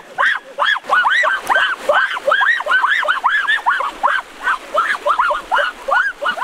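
Piglet squealing over and over: rapid high calls, about five a second, each rising and falling in pitch.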